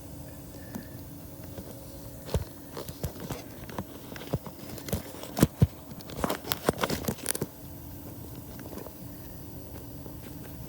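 Irregular clicks, knocks and scrapes of metal hand tools, bunched between about two and seven and a half seconds in, over a steady low hum.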